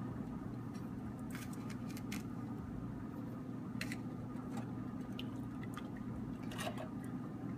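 A steel ladle stirring thin sambar in an aluminium pot: soft liquid squishing, with a few scattered light clicks of the ladle against the pot, over a steady low hum.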